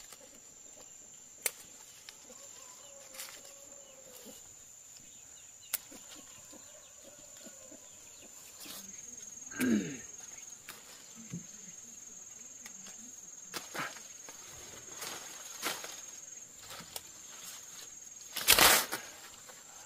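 Crickets or other insects chirring steadily at a high pitch, with scattered sharp clicks and knocks. About ten seconds in comes a short sound sliding downward in pitch, and near the end a loud brief rustling knock.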